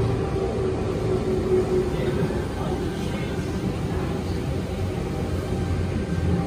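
Electric suburban train running, heard from inside the carriage: a steady rumble of wheels and track with a motor whine that falls slightly in pitch and fades out about two seconds in.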